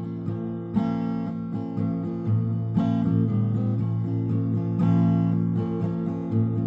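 Background music: strummed acoustic guitar chords, with a strum about every second.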